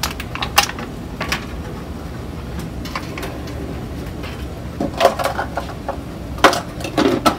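A metal utensil clinking and scraping against a stainless steel pot of mashed potatoes. There are a few sharp knocks in the first second and a half and another cluster near the end, over a steady low hum.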